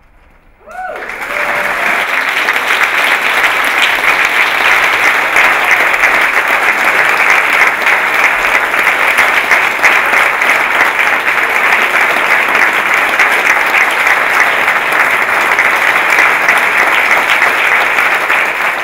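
Theatre audience applauding: the clapping breaks out suddenly about a second in and holds steady and loud.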